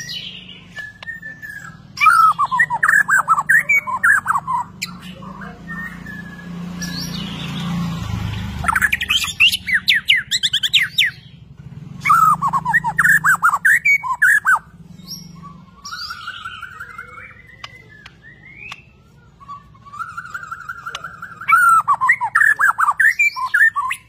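White-rumped shama of the Bornean type (murai batu Borneo) singing in its cage: four loud bursts of rapid, rich whistled phrases that sweep up and down, with softer single whistles between them.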